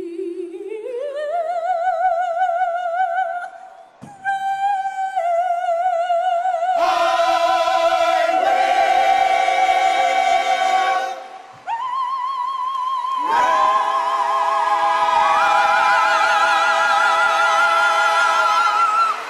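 A female soprano soloist singing long held notes with wide vibrato in an operatic style, with other voices joining in harmony partway through. Near the end she climbs to a high final note and holds it until it stops.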